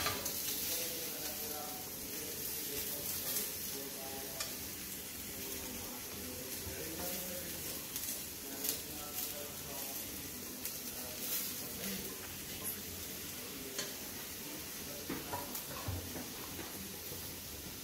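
Chopped bell peppers sizzling lightly in a hot pan, with a steady hiss and scattered clicks and scrapes as the pieces are pushed off a plate into the pan.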